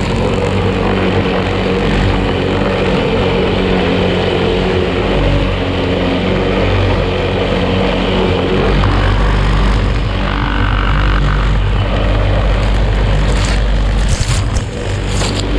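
Outils Wolf lawn mower's petrol engine running steadily under load, cutting tall grass. A few sharp clicks come near the end.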